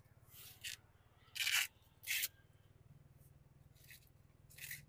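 Green husks being torn off a fresh maize cob by hand: a string of short crackling tears and rustles, the loudest about a second and a half in.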